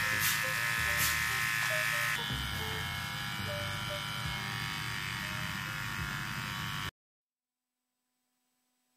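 Philips beard trimmer's motor and blades running with a steady electric buzz, on a test run after its battery replacement. The buzz drops slightly in level about two seconds in and cuts off suddenly near the end.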